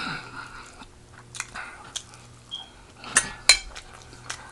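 A person chewing and eating food close to the microphone, with scattered light clicks and two sharper clicks about three seconds in.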